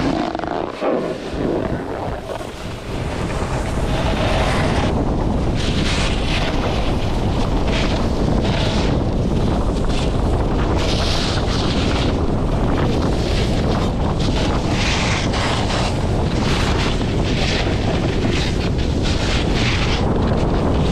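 Wind buffeting a selfie-stick action camera's microphone while riding downhill, with the hiss of edges scraping packed snow surging about once a second as the rider turns.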